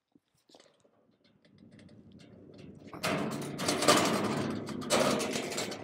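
Metal fruit chute on casters being pushed across concrete: the wheels roll and the frame rattles. The sound builds over the first few seconds and is loudest in the second half.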